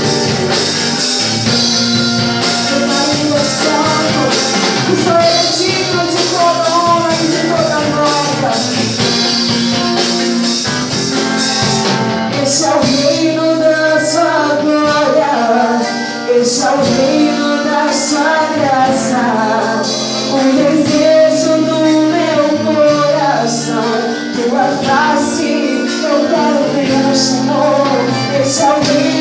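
Contemporary Portuguese-language worship music from a full band, with singing. A bright cymbal wash fills the first twelve seconds or so, then thins to sharper ticks as the melody comes forward.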